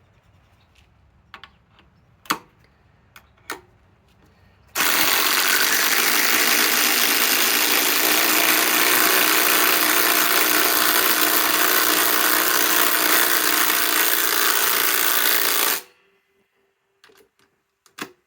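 Cordless impact driver running under load, hammering continuously for about eleven seconds: it starts about five seconds in and cuts off abruptly. A few sharp handling clicks come before it and after it.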